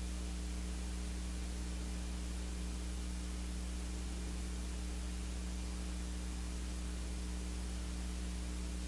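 Steady electrical mains hum with a constant hiss, unchanging throughout; no brush or other sounds stand out.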